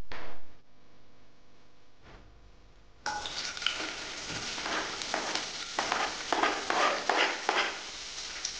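A short noise at the very start, then about three seconds in a sudden sizzle as sliced red onions drop into hot oil in a non-stick pan, with many sharp crackles and pops as they begin to fry.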